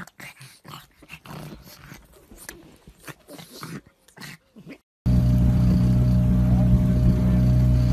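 Two pugs tussling, with short, irregular grunts and growls. About five seconds in there is an abrupt switch to a loud, steady low hum of a boat's motor running.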